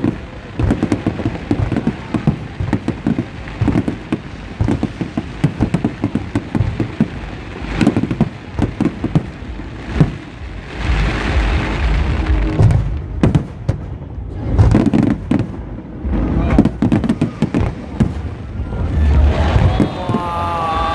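Aerial fireworks display: a rapid, continuous string of bangs and crackles, with a heavier run of bursts about halfway through.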